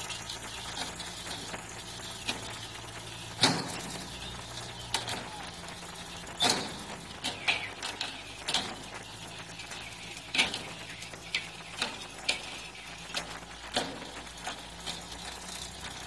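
Irregular sharp cracks and creaks, a dozen or so, from the timber launching ways and cradle under a fishing boat's hull as it slides down the slipway into the water. A steady low engine hum runs underneath.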